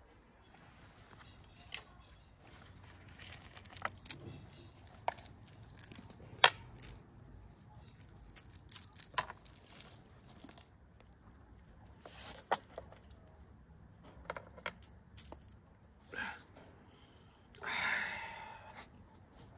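Steel chains and their hooks clinking and jangling in sparse, irregular clicks as they are pulled out of whole roasted chickens.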